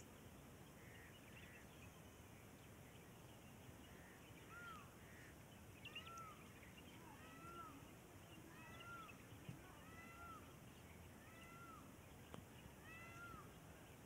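A series of about eight faint, short animal calls, each arching up and then down in pitch, repeated roughly once a second, over a quiet outdoor hiss.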